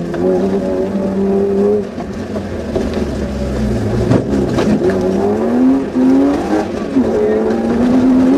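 Suzuki Vitara's engine heard from inside the cabin while driving off-road, its revs rising and falling. There is a single sharp knock about halfway through.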